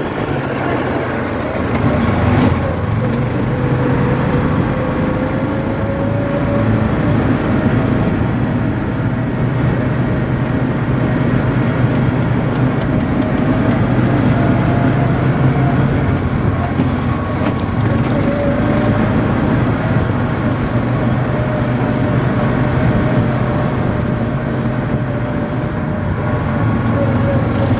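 ATV engine running steadily while riding, with a whine that drifts gently up and down in pitch as the throttle changes.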